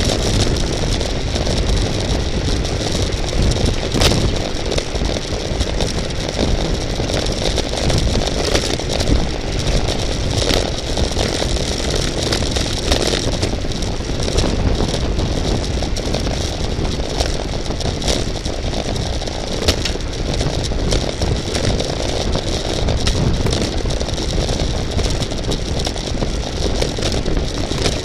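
Wind rushing over the microphone and road noise from a racing bicycle in motion, with frequent small clicks and rattles.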